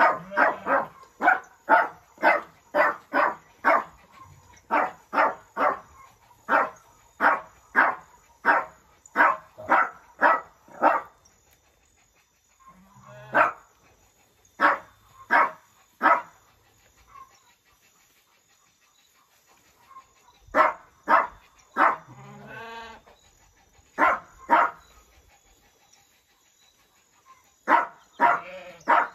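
A dog barking in quick runs of short, sharp barks, about two or three a second, that stop and start several times. One longer, wavering call comes about two-thirds of the way through.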